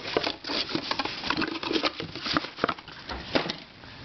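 Irregular plastic clicks and light knocks from twisty puzzles being handled and moved on a shelf.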